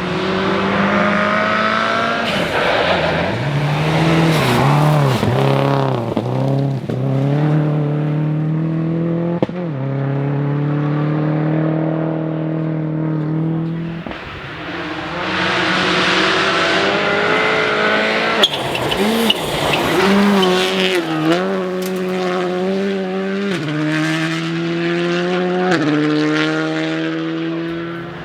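Rally car engine driven hard on a closed special stage. The revs climb through upshifts, dip sharply and flutter on lifts and braking, then pick up again. The sound fades about halfway through and then builds again.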